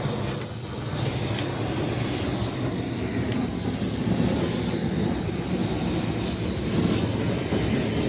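Gas flame gun burning with a steady rushing noise as it is swept over the shed floor for fire fumigation.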